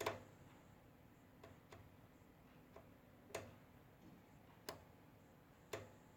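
Scattered sharp clicks, about six in all at uneven intervals, against near silence: the front-panel switches and knobs of an analog oscilloscope being clicked through while chasing a flickering trace that is suspected to come from dirty controls and a failing capacitor.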